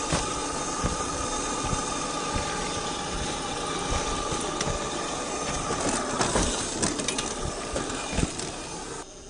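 Axial SCX10 II RC crawler driving, with a steady whine from its 550 brushed motor and gear drivetrain and scattered knocks and clicks. The sound drops off suddenly near the end.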